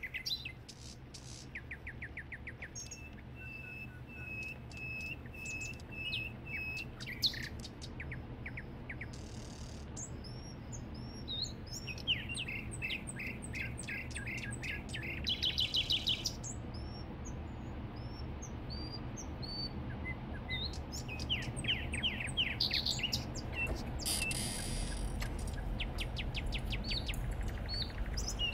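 Many birds chirping, trilling and whistling over one another. Under them a vehicle engine's low rumble grows louder near the end as the pickup truck approaches.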